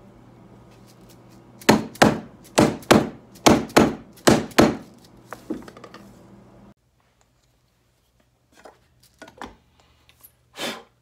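Hammer tapping a 1.5-inch ABS pipe used as a seal driver, knocking a new fork seal down into the fork slider so it seats below the circlip groove. About eight sharp knocks in quick pairs over some three seconds, then a few fainter taps. A steady background hum cuts off about seven seconds in, and a single lighter knock comes near the end.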